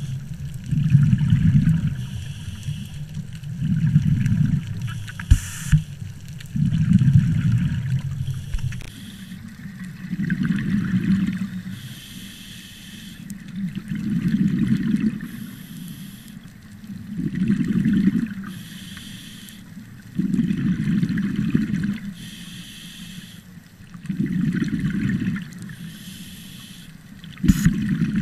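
Scuba diver breathing through a regulator underwater: a hiss on each inhale and a bubbling rush on each exhale, in a slow, even rhythm of one breath about every three to four seconds.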